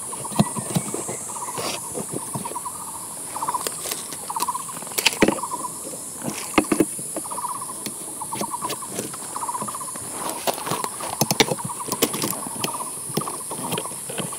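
A small animal's short, buzzy chirp repeating about once a second, over a steady high hiss, with scattered taps and clicks.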